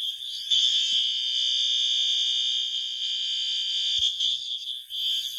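System Sensor SpectrAlert Advance horn strobe sounding its horn on high volume in the continuous pattern: a steady, loud, high-pitched electronic horn tone, which reads about 106 dB on a meter ten feet away.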